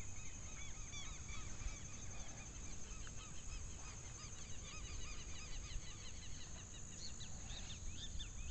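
Faint chorus of many short, high chirping bird calls, overlapping and growing busier near the end, over a low rumble.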